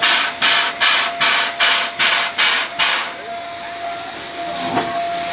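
SY-class 2-8-2 steam locomotive's exhaust beating at the chimney, about two and a half chuffs a second, stopping about three seconds in and leaving a steady hiss of steam.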